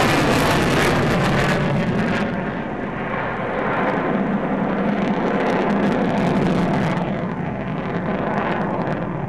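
Jet noise from an F-15DJ fighter's twin turbofan engines as the jet passes close and climbs away. The high hiss fades about two seconds in, leaving a deep rumble that swells again midway and eases off near the end.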